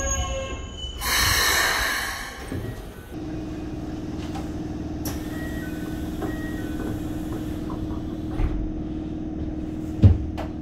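A Keikyu 600-series train's Mitsubishi GTO-VVVF inverter whine falls away as the train comes to a stop, then a loud hiss of released air about a second in. After that a steady electrical hum runs inside the car, and a sliding passenger door shuts with a thud about ten seconds in.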